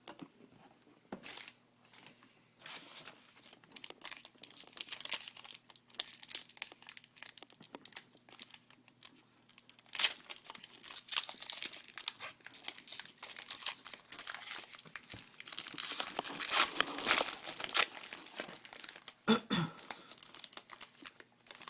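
A trading card pack's wrapper being torn open and crinkled in the hands, with irregular crackling that grows busier in the second half.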